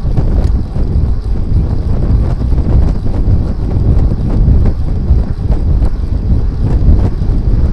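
Heavy wind buffeting on the microphone of a Fly6 rear camera-light mounted on a moving road bike: a loud, unsteady low rumble.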